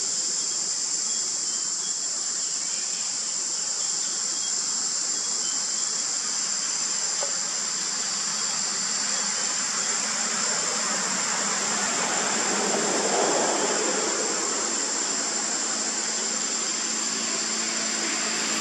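Steady high-pitched insect chorus, with a rushing noise swelling and fading about two-thirds of the way through.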